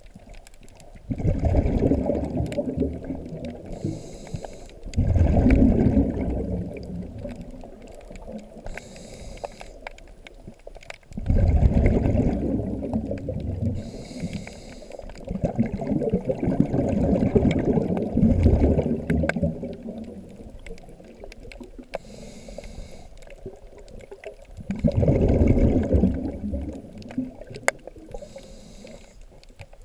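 Scuba diver breathing through a regulator, heard underwater through the camera housing: a short faint hiss on each inhale, then a long bubbling burst of exhaled air, about five breaths, one every five or six seconds.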